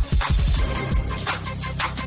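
Electronic music with a fast, heavy beat and a deep bass line.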